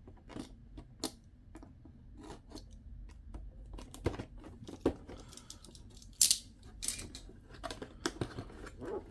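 Cardboard model-kit box and packaging being opened and handled: scattered clicks and taps with short rustling, scraping bursts, the loudest about six and seven seconds in.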